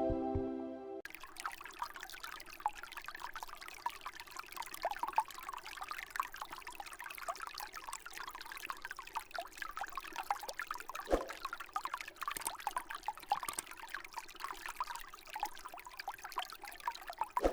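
Small tabletop water feature running: pumped water trickling and dripping into its bowl in many small irregular plinks, over a faint steady hum.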